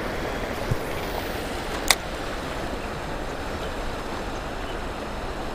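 Steady rush of river water running over rocks at a cascade, with a single sharp click about two seconds in.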